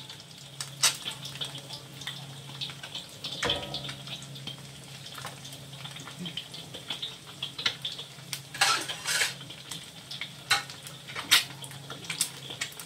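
A sunny-side-up egg frying in hot oil in a wok: irregular crackling and popping of spitting oil, with a cluster of louder pops about two-thirds of the way in. A faint steady low hum runs underneath.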